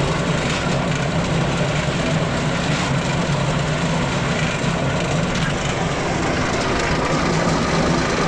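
Steady, loud vehicle noise, an engine's low hum under an even rush of road or wind noise, that cuts off suddenly near the end.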